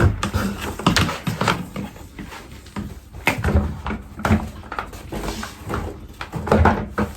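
Irregular knocks and clatter as vacuum cleaner extension tubes and a floor head are pushed together and handled, with the vacuum motor not yet running.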